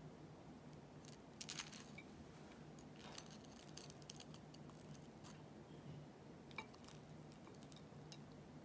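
Chopsticks prying a pan-fried gyoza loose from its crispy lattice skirt on a ceramic plate: faint, scattered crackles of the brittle crust and light clicks of chopstick tips, the loudest cluster about a second and a half in.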